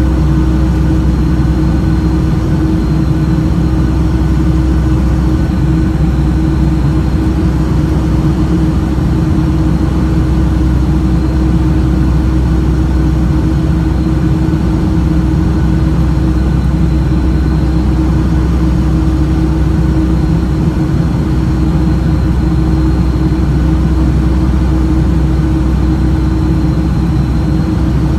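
Boeing 757-200 jet engines and airflow heard inside the cabin during the climb after takeoff: a loud, steady drone with a deep rumble and a constant hum.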